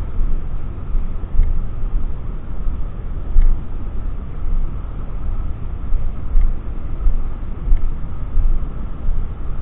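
Gusty low rumble of wind buffeting the microphone, swelling and easing in uneven gusts.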